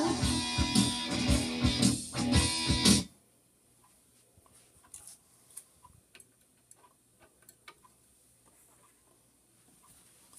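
Guitar-backed song playing from a vinyl record on a Thorens TD 125 MKII turntable, cutting off abruptly about three seconds in as the tonearm is lifted. After it, faint scattered clicks and light knocks of the record being handled and lifted off the platter.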